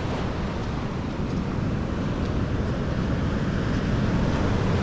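Ocean surf breaking and washing on the beach, with wind buffeting the microphone as a steady low rumble.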